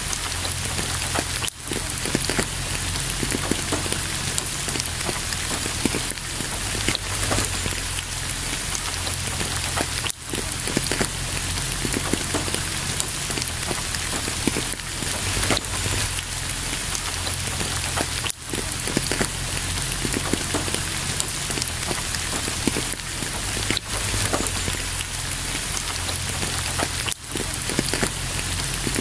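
Steady, heavy rain: a dense, even hiss made of many separate drop hits. Its level briefly dips for an instant about five times, with no thunder heard.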